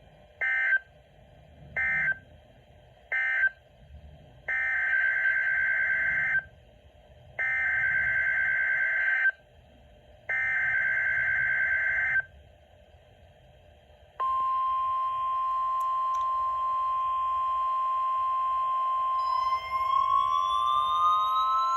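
NOAA Weather Radio SAME digital data tones: three short buzzy bursts marking the end of one alert message, then three longer buzzy bursts of about two seconds each, the header of the next alert. About fourteen seconds in, the steady weather-radio warning alarm tone starts and holds, with a second tone gliding upward over the last couple of seconds.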